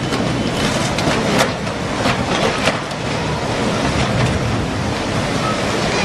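A surge of floodwater rushing through a street, a steady loud rush of water with several knocks and crashes of debris and cars being swept along.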